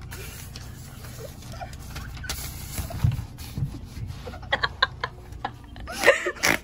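Handling noise of a phone held low over carpet, with a couple of soft thumps about three seconds in, then stifled giggling near the end.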